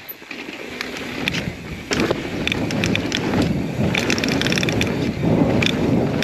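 Mountain bike being ridden over rough trail: tyre rumble and crunch with rapid rattling clicks from the bike, and wind buffeting the microphone, growing louder about two seconds in.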